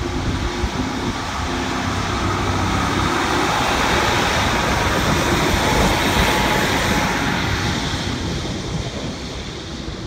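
First Great Western Class 150 Sprinter diesel multiple unit passing along the platform, its diesel engines and wheels on the rails swelling to their loudest about six seconds in, then fading as it runs away.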